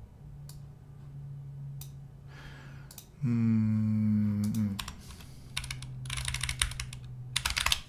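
Typing on a computer keyboard in bursts, heaviest over the last couple of seconds. A man's voice hums a steady 'hmm' for about a second and a half near the middle, falling in pitch as it ends.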